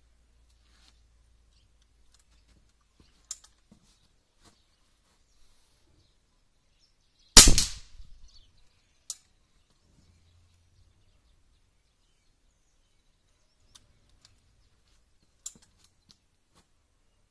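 A single air rifle shot from a ZMZ Izh-60 about seven seconds in: a sharp crack that dies away in about half a second. A few light clicks come before and after it.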